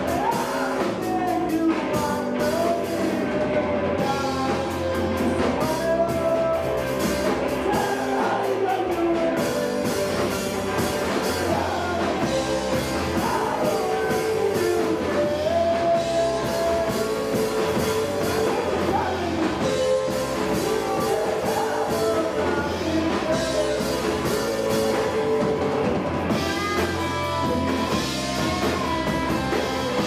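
Punk rock band playing live: a singer over electric guitar and drum kit.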